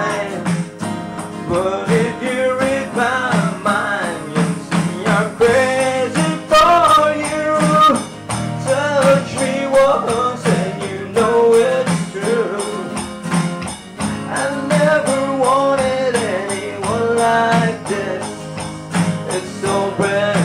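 Acoustic rock band playing: strummed guitar under a melody line that bends in pitch, with a steady tambourine-like pulse.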